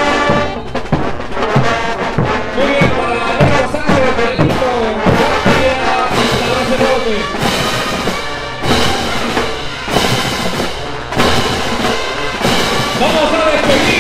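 Large Bolivian brass band playing a morenada: a brass melody over bass drum and snare, with pairs of crash cymbals clashed on the beat.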